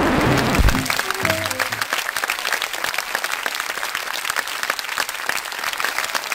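Audience applauding steadily, a dense crackle of many hands clapping, with the last few notes of music trailing off in the first two seconds.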